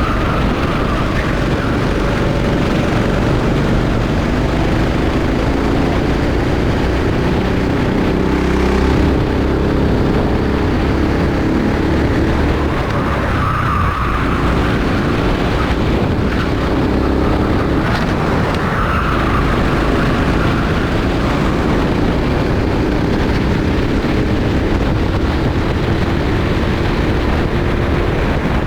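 Rental kart engine running flat out during a race, its pitch climbing steadily as the kart accelerates and dropping sharply twice when it slows for corners.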